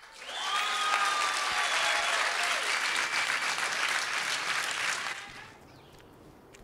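Audience applause that swells in just after the start and dies away about five seconds in.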